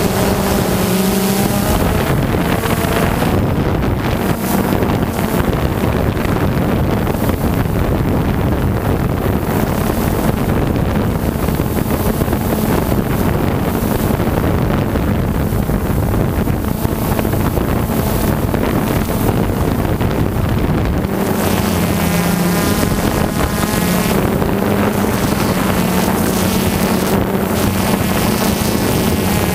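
DJI Phantom quadcopter's four electric motors and propellers humming steadily, picked up by the camera slung beneath it, mixed with wind rushing over the microphone. About two-thirds of the way in the hum becomes steadier and clearer.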